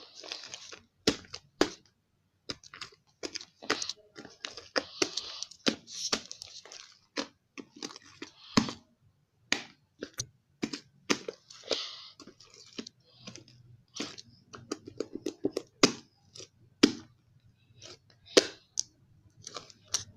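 Slime being squeezed and poked by hand, giving irregular sharp pops and clicks with short bursts of sticky crackling.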